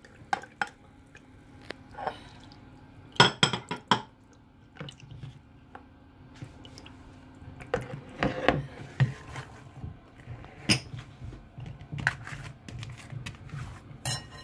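Scattered knocks and clatter of a glass container against a plastic colander and mixing bowl as soaked, sliced potatoes are drained and tipped out, with a quick cluster of sharp knocks about three seconds in.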